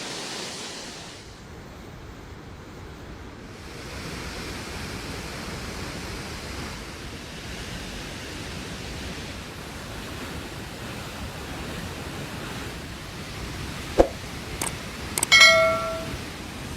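Fast-flowing floodwater rushing steadily. About 14 seconds in there is a sharp knock, followed soon after by a brief high-pitched call.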